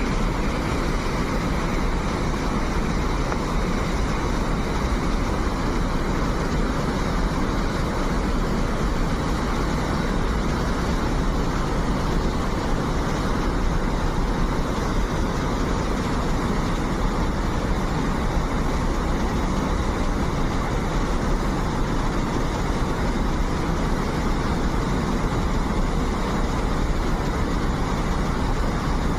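Hadagada waterfall's water pouring, a steady, unbroken rush of noise with a strong low rumble.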